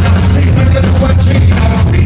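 Loud live band music with heavy bass and a steady beat, recorded from the crowd and distorted at the top.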